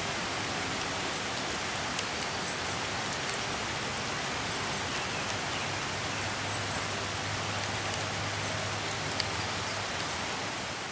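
Steady rain falling, an even hiss with a few sharp drop ticks.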